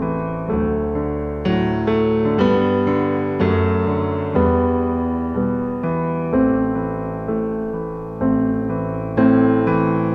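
Background piano music: chords struck about once a second, each left to ring and fade.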